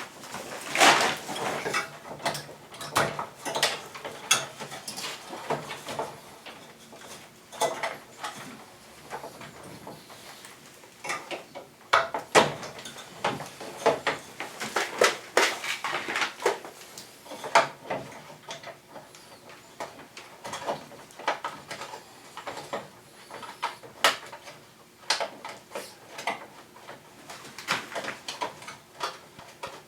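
Plastic air-conditioner parts being handled during disassembly or reassembly: irregular clicks, snaps and knocks, some in quick clusters.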